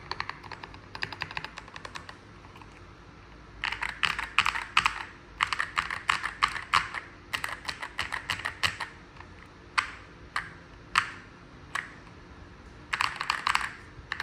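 Typing on a Zuoya GMK67-S mechanical keyboard with Ajazz Moon Yellow switches, full foam and XDA-profile keycaps. Quick runs of keystrokes clack, with a short pause about two seconds in, several lone keystrokes past the middle, and a last fast run near the end.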